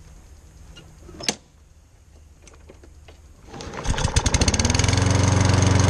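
Lawn mower's small gasoline engine, helped by a spray of carburetor cleaner, pull-started: it catches about three and a half seconds in and settles quickly into a loud, steady run. A single sharp click comes about a second in.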